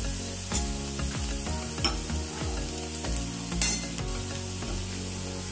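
Chopped onions and green chillies sizzling in hot oil in a steel kadai, with three sharp clicks.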